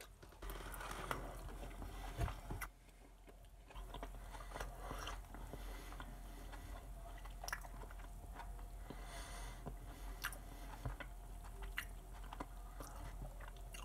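A person chewing a mouthful of baked potato and asparagus close to the microphone, with scattered small clicks and wet mouth sounds.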